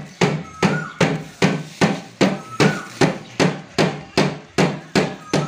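Steady hammering, sharp even blows at about three a second with a short ring after each, stopping at the very end.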